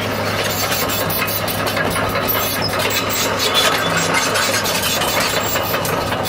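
The six-cylinder diesel engine of a 2007 Komatsu PC200LC-8 hydraulic excavator running steadily with a constant low hum.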